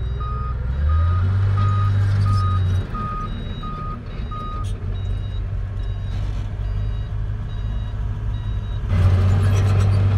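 Heavy-machinery reversing alarm beeping about twice a second over a diesel engine running. The main beeping stops about halfway through while a fainter, higher beep carries on. Near the end the engine grows louder.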